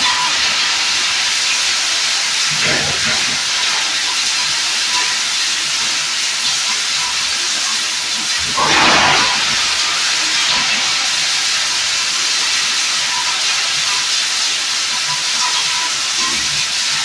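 Plastic lumps grinder running with a loud, steady hissing noise. Two brief louder surges break through it, the stronger about nine seconds in.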